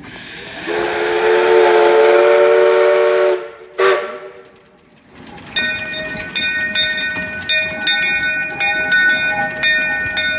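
Steam whistle of a small narrow-gauge steam locomotive: a hiss of steam, then one long chord-like blast of about three seconds, followed by a short toot. From about five and a half seconds in, the engine and its coaches pass close by, with regular clicking of the wheels over the rails and a steady high squeal.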